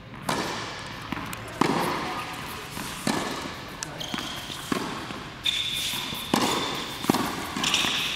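Tennis balls struck by rackets and bouncing on an indoor hard court during a doubles rally: a string of sharp pops, about one a second, each echoing in the hall. A high squeak sounds about halfway through.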